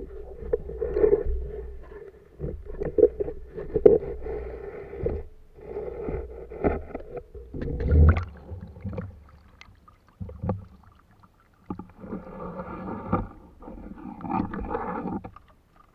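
Water movement and handling knocks picked up by a camera held underwater. They come in irregular bursts, with sharp knocks about four and eight seconds in and a denser stretch of water noise near the end.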